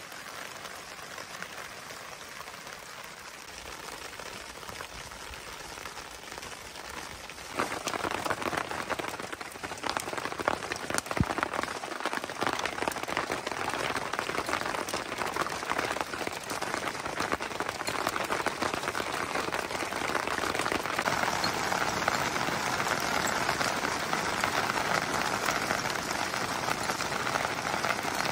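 Heavy rain falling in a steady hiss. It gets louder about seven and a half seconds in, then heavier again about twenty-one seconds in, with a few sharp individual hits.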